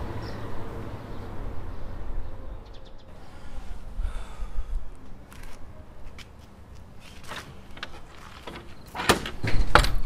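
Low background noise with a few faint clicks, then a hand knocking several times in quick succession on a wooden door near the end.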